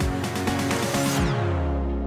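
Electronic background music with a bass line and beat; about a second in, the high sounds sweep downward and fade away, leaving a held low bass note.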